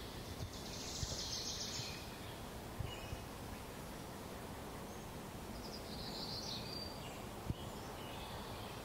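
Faint birdsong over a steady background hiss of outdoor ambience, with brief high song phrases about a second in and again around six seconds in.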